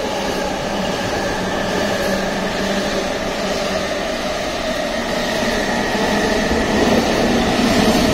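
Electric freight locomotive approaching and running past at speed, a steady rumble with a humming tone that grows louder as it draws alongside, with the container wagons starting to roll by near the end.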